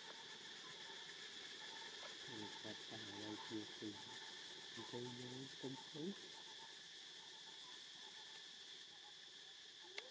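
Faint, steady chorus of insects such as crickets, with two short runs of low, voice-like grunts about two and five seconds in, and a single sharp click near the end.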